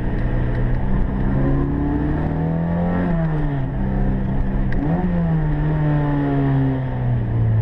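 Opel Kadett GT/E race car's four-cylinder engine heard from inside the cabin under hard driving. Its revs climb for about three seconds, break at a gear change, rise again with a sharp peak about five seconds in, then fall away steadily near the end.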